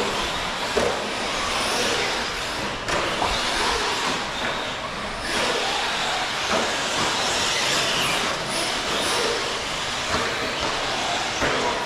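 1/8-scale electric RC truggies racing, a steady rush of motor and tyre noise broken by a few sharp knocks.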